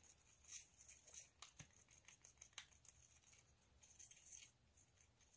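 Faint, irregular scraping and ticking of a thin stick stirring acrylic paint in a small plastic cup, with a slightly longer scrape about four seconds in.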